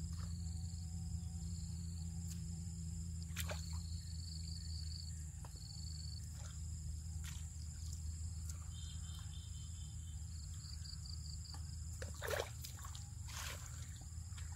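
Insects chirping in short pulsed trills over a steady high drone, with a low steady hum underneath. Hands slosh in shallow muddy water, with a couple of louder splashes near the end.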